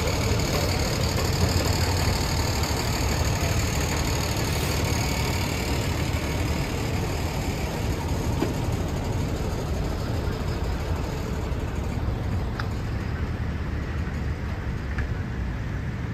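Flatbed tow truck's engine idling steadily: a low, even rumble that grows a little fainter near the end.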